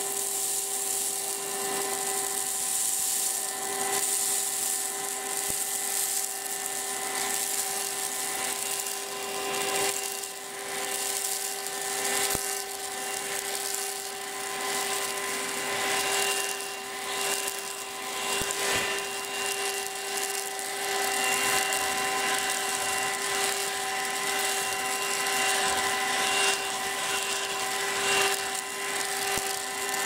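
BlitzWolf BW-AR182 cordless handheld vacuum cleaner, crevice tool fitted, running at a steady pitch: a motor whine over airflow hiss. Scattered ticks and rattles come through as loose particles are sucked up off the carpet.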